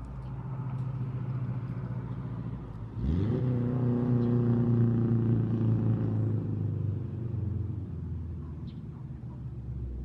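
A motor vehicle's engine running; about three seconds in it revs up sharply and runs louder and steady, then fades away gradually over the last few seconds.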